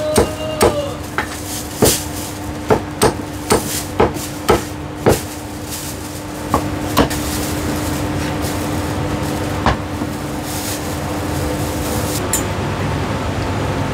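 Heavy Chinese cleaver chopping roast meat on a thick round wooden chopping block: a quick run of sharp chops, about three a second, for the first five seconds, then a few single chops. A steady hum runs underneath.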